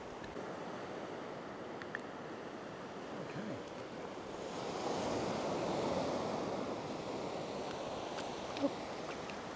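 Ocean surf breaking and washing up onto a sandy beach, a steady rushing that swells louder about halfway through as a wave comes in.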